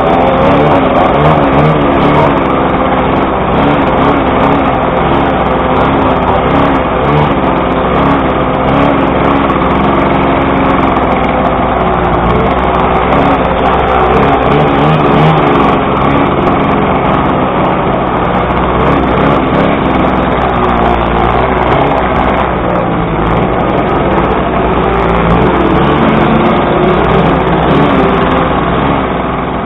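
Several small single-cylinder two-stroke Puch 50cc moped engines running and being revved up and down, their pitches wavering over one another.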